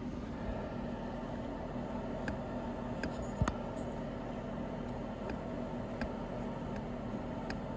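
A steady low hum in a small room, with a few faint, light clicks of small metal engine parts being handled.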